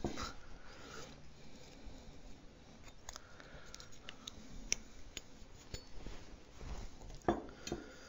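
Faint handling noise with scattered small clicks and taps as a brass shower temperature cartridge is turned in the hands and a rubber O-ring is worked onto it, with a sharper knock near the end.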